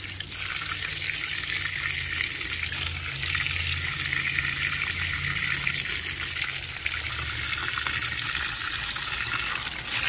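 Cold water from a garden hose splashing steadily into the wash tub of a portable twin-tub washing machine, filling it over a load of clothes.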